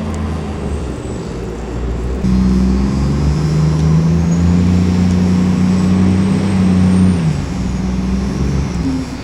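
A motor vehicle's engine running close by, growing louder about two seconds in as it works harder, holding, then easing off a little after seven seconds, with a faint high whine rising over the middle.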